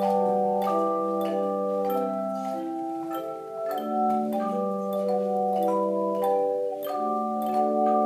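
Hand-held tone chimes (bell chimes) played by an ensemble: overlapping ringing bell tones that form changing chords, with new notes struck about twice a second and each note sustaining into the next.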